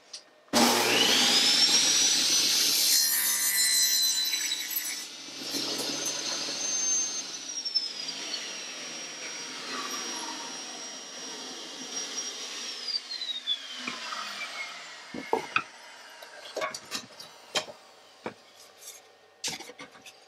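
Band saw starting up with a rising whine and cutting through a wooden board. It is then switched off, and its whine falls away as it coasts down. Near the end come a few sharp wooden knocks as the cut board is handled.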